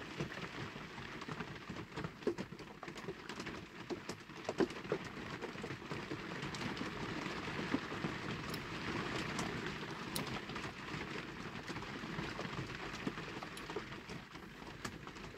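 Heavy rain falling on a shed roof, heard from inside the shed: a steady hiss dotted with many small irregular ticks.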